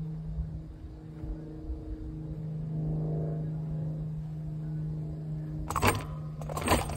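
Metal chains and cage of a disc golf basket rattling in two short jangles near the end, as discs are handled in the basket. Under it runs a steady low motor hum.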